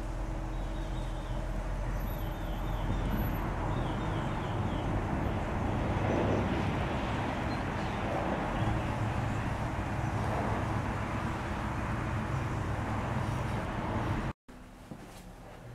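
1949 GMC pickup with a small-block Chevy V8 running as the truck pulls out and drives past. The engine is loudest about six seconds in, then runs steadily until the sound cuts off suddenly near the end.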